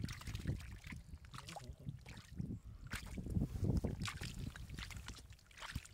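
Hands scooping and sloshing through thick, watery mud into a plastic basket: irregular wet squelches and splashes.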